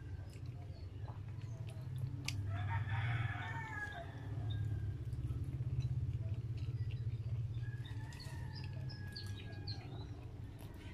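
A fowl-like call in the background, starting about two and a half seconds in and ending on a falling note, with a fainter held call near the end. Small clicks of eating fries and a low steady hum run underneath.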